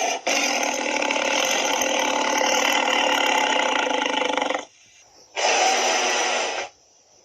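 Tyrannosaurus roar sound effect: a long, harsh roar of about four seconds. It is followed by a second, shorter roar of about a second.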